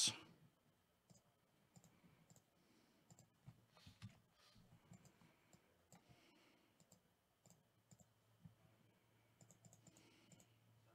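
Near silence broken by faint, scattered clicks of a computer mouse and keyboard.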